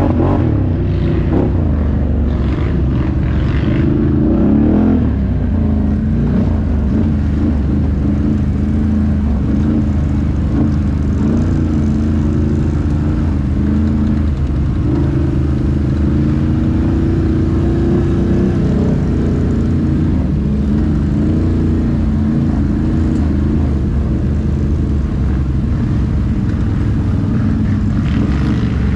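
Can-Am ATV's V-twin engine running under way, its pitch rising and falling with the throttle.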